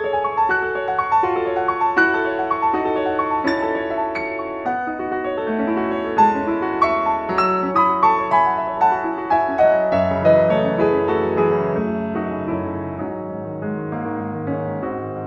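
Piano music: a flowing melody of struck notes, each ringing and fading, with lower bass notes joining about two-thirds of the way in.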